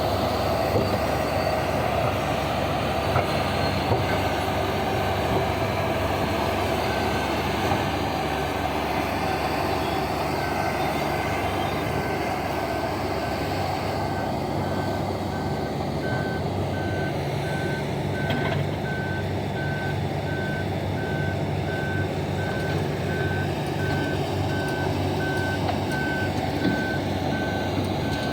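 Large diesel engines of mining machinery running steadily under load. From about ten seconds in, a vehicle's reversing alarm beeps at an even pace, as a haul truck backs up.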